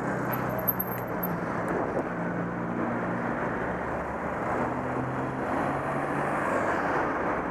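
Steady traffic and road noise with a vehicle engine running, its low hum holding for a second or two at a time and changing pitch now and then, heard from a rider on the move.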